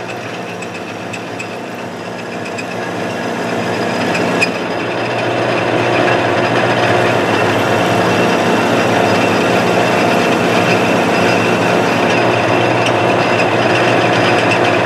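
Manual metal lathe running, its spindle turning a steel pipe while the tool cuts a bevel on the pipe end: a steady machine hum that grows louder over the first few seconds and then holds, with one short click about four seconds in.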